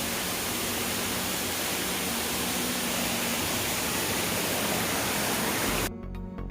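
Waterfall: a steady rush of falling water, cut off abruptly near the end by background music with a regular beat.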